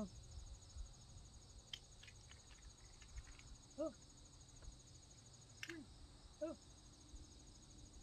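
Faint, steady, rhythmic trilling of insects. A few soft clicks and three short, low vocal sounds with falling pitch come in the second half.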